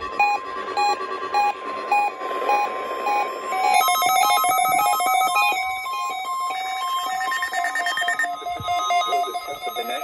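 NOAA weather alert radios sounding their alert beeps for a Required Weekly Test. A single repeating electronic beep, about two to three a second, turns about four seconds in into a layered chorus of beeps at several pitches as more radios go off together.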